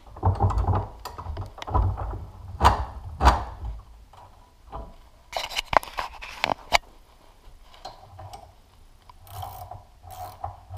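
Metal hydraulic-cylinder parts handled on a workbench: thumps and rubbing at first, a few sharp metallic clicks about five to seven seconds in, then a light repeated rasping near the end as a nut is spun by hand onto the threaded end of the piston rod.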